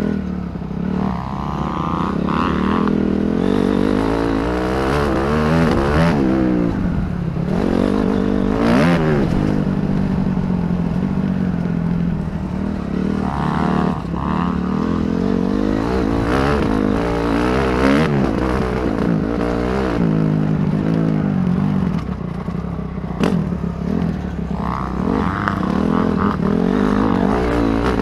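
Motocross dirt bike engine, heard from the rider's helmet, revving hard and shifting through the gears so its pitch climbs and drops back again and again, with wind rush and a few knocks from the track.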